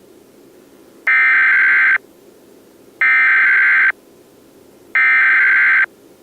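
Emergency Alert System SAME header: three identical bursts of digital data tones, each just under a second long with about a second between them, over a low steady hiss.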